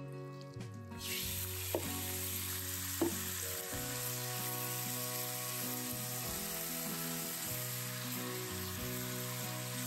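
Chicken thigh pieces frying in hot vegetable oil in a frying pan: a steady sizzle that starts about a second in, with two sharp knocks soon after.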